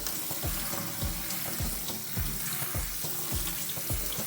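Kitchen tap running steadily as cold water rinses quinoa, over background music with a steady beat.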